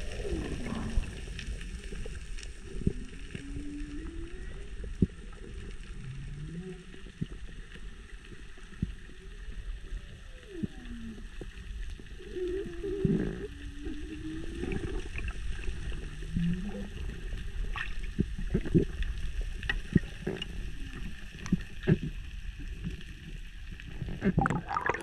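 Humpback whale song heard underwater: a series of low moaning calls that glide up and down, over steady underwater noise with scattered sharp clicks.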